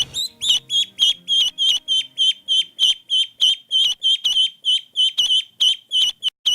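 Duckling peeping rapidly: a steady string of short, high peeps, about four a second.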